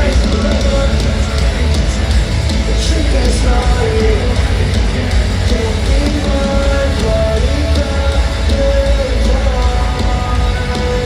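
Live pop-punk rock band playing loudly: distorted electric guitars, heavy bass and drums, with a singing voice over the top.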